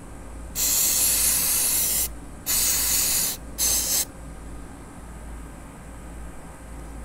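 Aerosol can of CRC Mass Air Flow Sensor Cleaner spraying in three hissing bursts: a long one of about a second and a half, a shorter one, then a brief puff about four seconds in.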